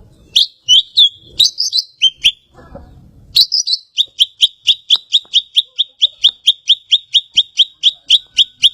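Cucak ijo (green leafbird) singing: a few varied high notes, then from about three and a half seconds in a fast, even run of repeated short chips, about four to five a second.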